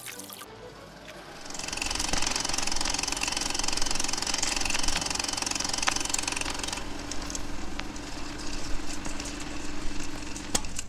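Film projector running: a fast, steady mechanical clatter with a high hiss that starts about a second and a half in, with a few sharp clicks near the end.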